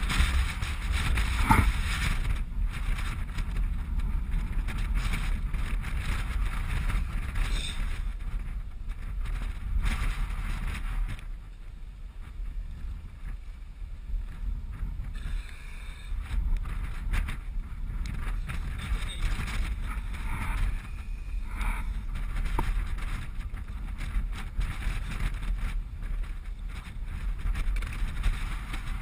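Wind buffeting an action camera's microphone: a steady low rumble that swells and eases, dropping away briefly around the middle.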